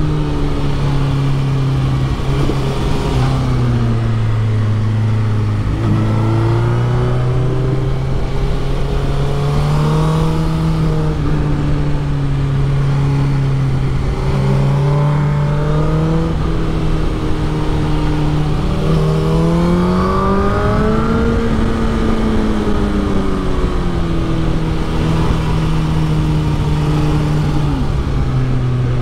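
Suzuki GSX-R1000 K6's inline-four engine pulling through a run of bends at moderate revs. Its pitch rises under throttle and sags off between corners several times, with a steady wind rush over the microphone.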